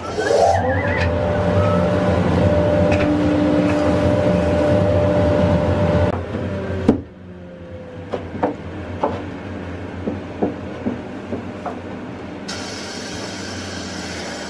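A CNC router spindle spins up with a quickly rising whine and then runs at a steady pitch for about six seconds, ending in a sharp click. After that come a series of light clicks and knocks as a motor mount is handled and set down on the MDF bed.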